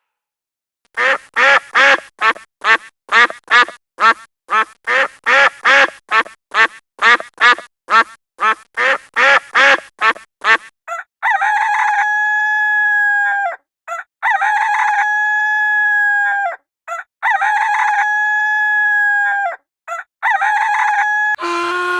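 A duck quacking in a quick run of about two to three quacks a second for some ten seconds, then a rooster crowing four times, each crow a long, level call that drops at the end.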